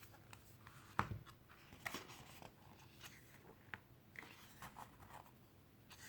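Quiet handling of a photobook: a soft thump about a second in, then light paper rustles and taps as the cover and pages are opened.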